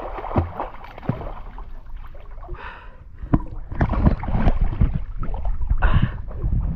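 Water splashing and sloshing as a person moves about chest-deep in a muddy stream, with irregular knocks and bumps close to the microphone. It grows louder and busier about four seconds in.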